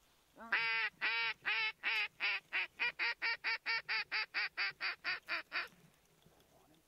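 Mallard duck call sounding a long string of about twenty quacks. The first few are drawn out and spaced wider, and the rest come shorter and quicker, calling to ducks in flight overhead.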